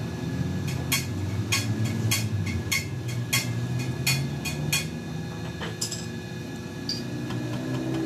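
Sharp metallic clicks and clinks, about ten in quick, uneven succession, then a few fainter ones, as a steel round threading die is handled and seated in its die stock. A steady low hum runs underneath.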